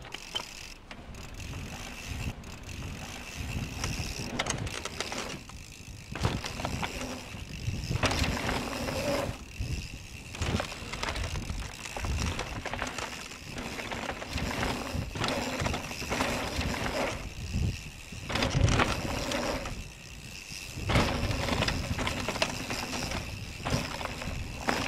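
FPV racing drone's motors and propellers whining, rising and falling with the throttle in repeated surges, over wind rushing across the microphone.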